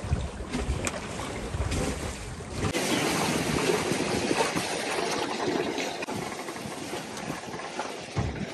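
Wind buffeting the microphone on a sailboat under sail, then, from about three seconds in, a steady rush of water along the hull and wake.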